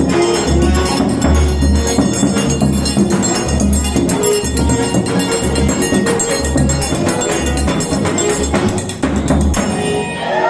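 Forró dance music with a pulsing bass beat and rapid, bright ticking percussion, stopping abruptly near the end; a crowd's shouting voices start just after it stops.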